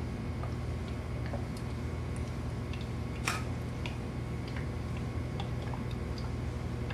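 Steady low hum with faint scattered ticks and one sharper click about three seconds in, as a plastic bottle of PAG 46 oil is handled and poured into an A/C compressor.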